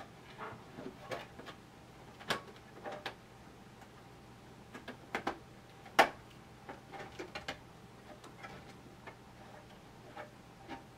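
Metal I/O shield being pushed and snapped into the rear opening of a 3D-printed PLA case: irregular small clicks and snaps of metal on plastic, the sharpest about six seconds in.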